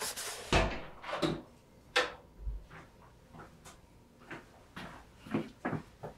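Paper being crumpled and handled: a run of short, irregular crinkles and soft knocks, the first few the loudest.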